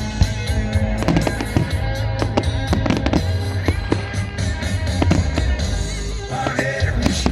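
Fireworks going off in quick, irregular succession, many sharp bangs and crackles, over loud music with heavy bass.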